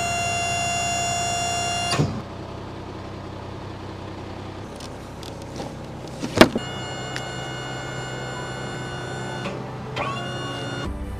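An electric motor whines steadily in separate runs, each starting or stopping abruptly: it cuts off with a click about two seconds in, runs again for about three seconds after a sharp click, then spins up once more near the end. It is the kind of motor that drives the camper's powered rear hatch or fold-down platform.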